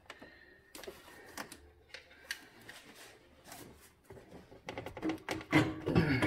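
Metal exhaust downpipe knocking and scraping against engine-bay parts as it is worked loose by hand: a few faint ticks at first, then a quick run of louder clanks and clatter over the last second and a half.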